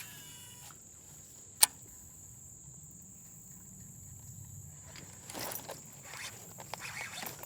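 Insects droning with a steady high tone, cut by one sharp click about a second and a half in, with irregular rustling and handling noise building over the last two seconds.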